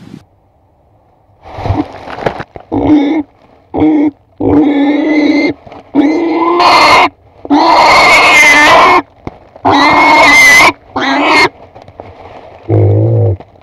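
Pig squealing loudly: a string of about eight pitched squeals, each half a second to a second and a half long, followed by one lower grunting call near the end.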